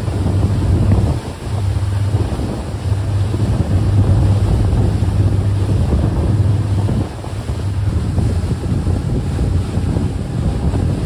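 Motor cruise boat running at speed, with wind buffeting the microphone over the rush of churning wake water and a low rumble underneath.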